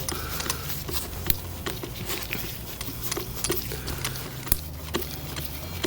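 Scattered light clicks and taps of small hardware being handled: machine screws going through a metal corner bracket into a plastic door panel, over a low steady hum.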